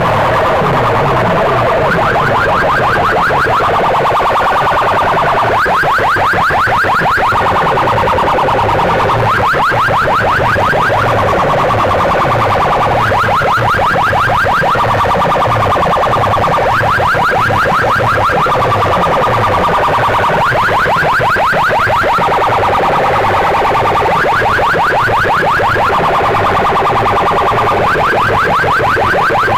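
Huge DJ speaker boxes playing a competition track at full volume: a fast-pulsing, alarm-like warble comes in bursts every few seconds over a repeating pattern of short falling bass sweeps.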